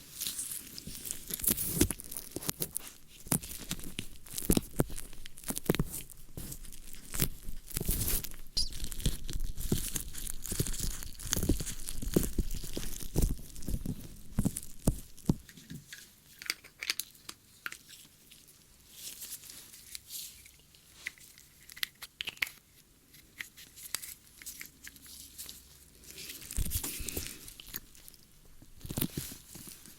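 Close-miked ASMR ear-cleaning sounds: crackly scratching and rubbing. Dense for about the first half, then sparser scattered clicks, with a short patch of rubbing near the end.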